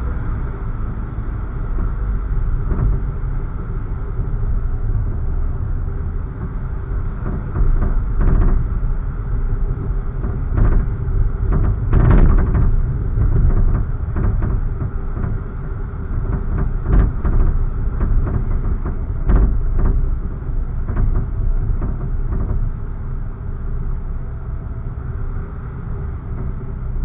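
Car driving at low speed, heard from inside the cabin: a steady low rumble of engine and tyre noise, with a few knocks from bumps in the road, the loudest about twelve seconds in.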